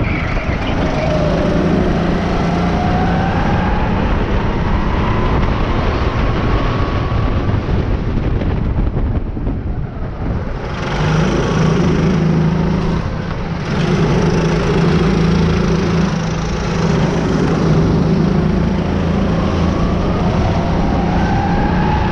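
Rental race kart's engine heard from on board, its pitch rising as it accelerates. The engine note drops away briefly a little before halfway through and again a few seconds later, then picks up again.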